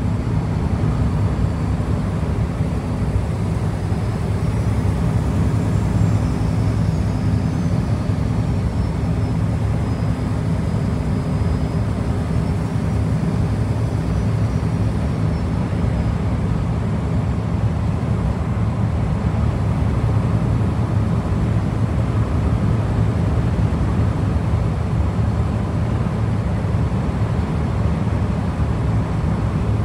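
Scania V8 truck engine running steadily at cruise, with road noise and no change in pitch or level.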